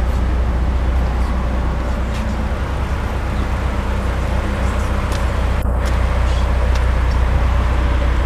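Audi TT's 1.8-litre turbocharged four-cylinder engine idling steadily, a low even hum.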